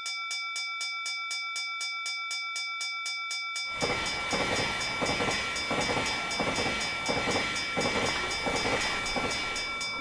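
Railroad crossing warning bell ringing in rapid, even strokes (the Japanese "kan-kan"). About three and a half seconds in, a passing train's rumble and rhythmic wheel clatter join the bell. Both stop near the end.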